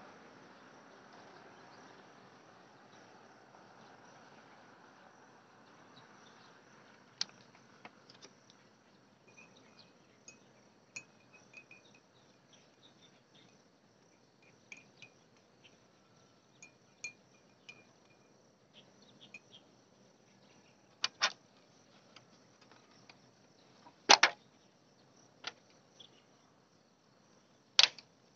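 Insects chirping faintly in short high trills, with scattered sharp clicks or ticks; the clicks grow louder and more frequent in the last third.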